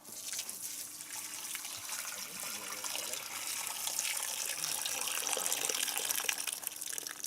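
Soapy waste water being poured out into a small hole in the ground: a steady pour that cuts off near the end.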